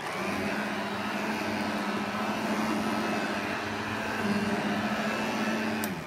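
A 1988 Royal 501 metal hand vacuum's small one-speed motor starts abruptly and runs at a steady hum, then cuts off near the end.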